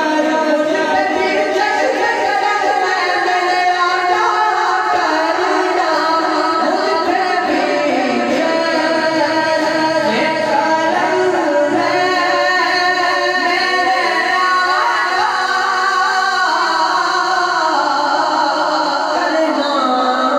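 A man singing a naat, an Urdu devotional poem in praise of the Prophet, into a microphone. One continuous melodic line, with the pitch bending and gliding between held notes.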